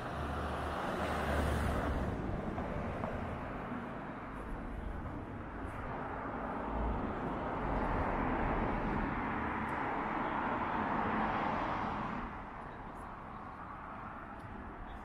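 City street traffic: a vehicle passes about a second in, and a longer, louder pass swells up in the middle and fades out about three seconds before the end.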